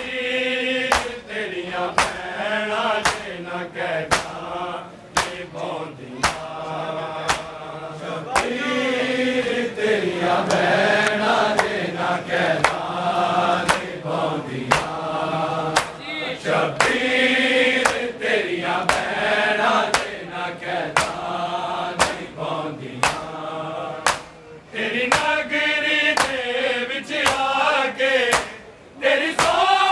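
A crowd of men chanting a noha together behind a lead reciter, over a steady beat of loud open-hand slaps on their chests (matam). The voices drop out briefly a few times while the beating keeps on.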